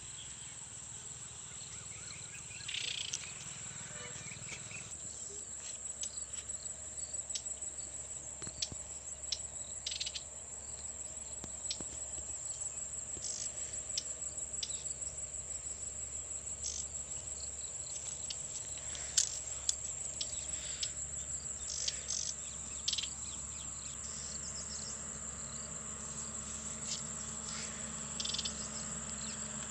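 A steady, high-pitched chirring of insects, likely crickets, goes on throughout. Scattered short clicks and light knocks sound over it, the sharpest a little past the middle.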